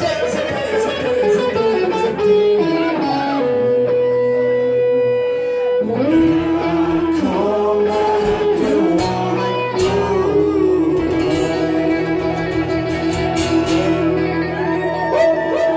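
Live band music: amplified acoustic guitar with an electric guitar, playing held notes that bend and slide in pitch.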